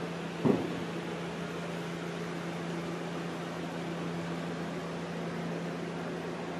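Steady background hum with an even hiss, and one short bump about half a second in.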